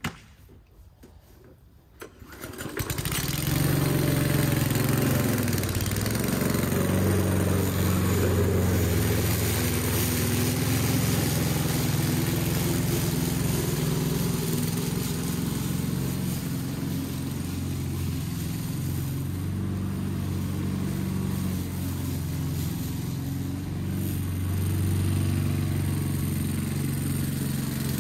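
Petrol engine of an Aldi Ferrex 20-inch self-propelled lawn mower starting about two and a half seconds in, then running steadily at an even speed.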